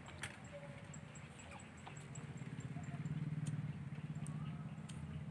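An engine running some way off, a steady low hum that grows louder toward the middle and then eases, with a few faint high chirps over it.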